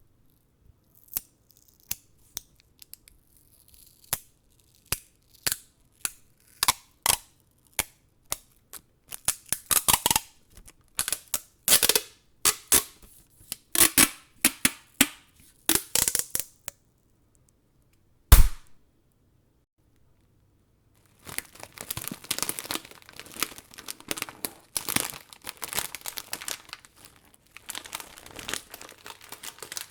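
Close-up handling sounds: a run of sharp single clicks, then louder rasping strokes about once a second, one heavy thump, and after a short pause a long stretch of continuous crinkling.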